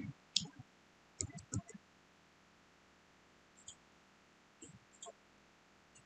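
Faint, scattered clicks of a computer mouse and keyboard, a few at a time in small groups, over quiet room tone.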